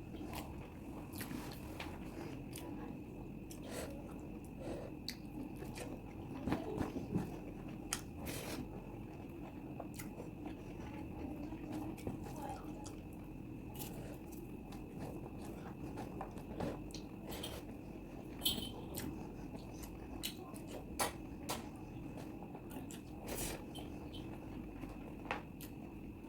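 Close-up chewing and wet mouth sounds of someone eating chicken curry with rice, with frequent short clicks and smacks scattered throughout, over a faint steady hum.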